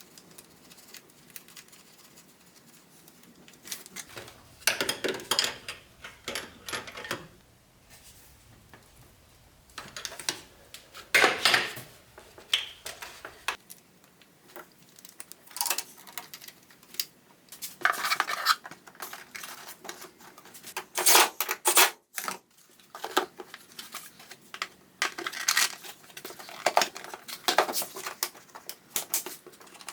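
Metal hand tools clinking and scraping against metal in scattered short bursts, with the loudest clanks about eleven seconds in and again about twenty-one seconds in, during wrench work to fit a new oil pressure sensor in the engine bay.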